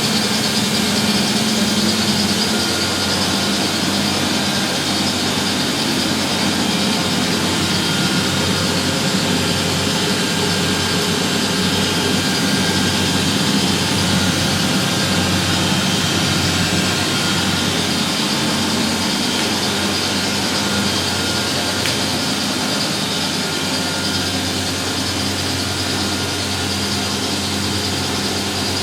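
Three washing machines (a Miele, a Euronova and a Sparmeister) spinning at the same time: a loud, steady mechanical hum and whir with a constant pitch.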